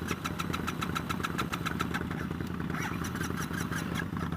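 A motorcycle engine idling steadily, with an even beat of about six pulses a second.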